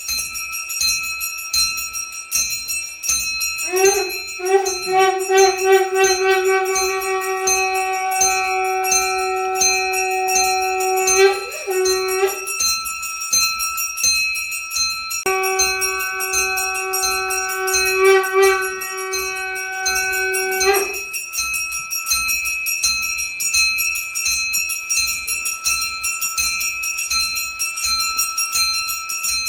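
Metal puja hand bell rung rapidly and without pause. Twice, a long steady blown note sounds over it, each held for several seconds.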